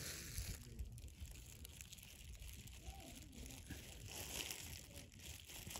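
Wind rumbling on the microphone, with faint rustling and a faint distant voice about three seconds in.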